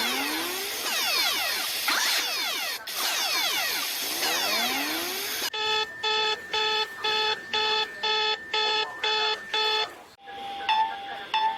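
EAS-style emergency alert alarm tones. First comes about five seconds of dense tones sweeping up and down. Then a multi-tone electronic beep pulses about twice a second, and after a brief break near the end a different pattern starts: a steady tone with short beeps over it.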